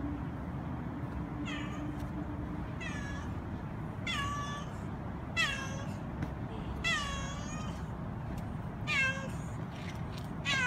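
A stray cat meowing again and again, about seven short meows, each dropping in pitch at the end, over a steady low background hum. These are the begging meows of a stray cat waiting to be fed.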